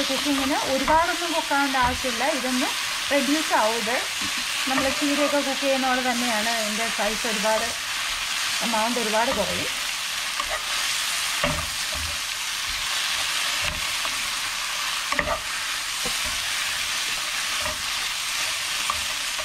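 Sliced mushrooms and fresh spinach frying in oil in a nonstick pan, sizzling steadily as the spinach wilts. A spatula stirs and scrapes through them, with a few knocks against the pan.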